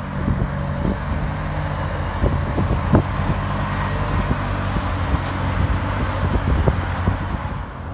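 Zamboni ice resurfacer's engine running steadily as the machine drives across the rink flooding the ice, with a few short knocks about two and three seconds in.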